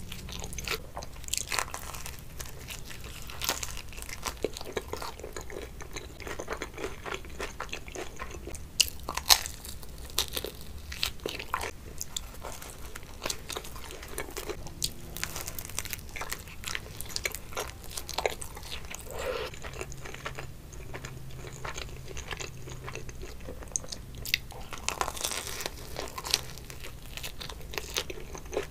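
Close-miked eating of cheesy pizza: bites into the crust and ongoing chewing, with irregular crisp crunches and wet mouth sounds, a few sharper snaps standing out around a third of the way in and near the end.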